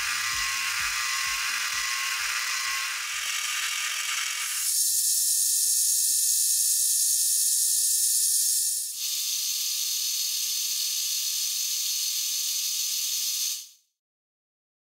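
Gear hobbing attachment cutting teeth into a gear blank, sped up fourfold: a steady high whir and hiss that changes character twice, then cuts off suddenly near the end. A slowing low thudding fades out over the first few seconds.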